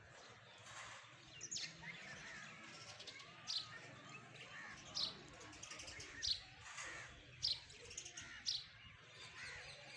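Birds singing: one bird repeats a short, high, falling chirp every second or two, with softer twittering from other birds beneath.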